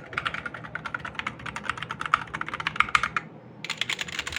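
Rapid typing on a cheap semi-mechanical (membrane-type) computer keyboard, a quick run of clacking keystrokes with a short pause just after three seconds before it resumes. The typing shows off how noisy the keyboard is.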